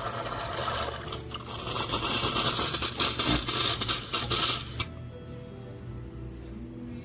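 Background music with steady tones, overlaid for the first five seconds by a loud, even rushing noise that stops suddenly.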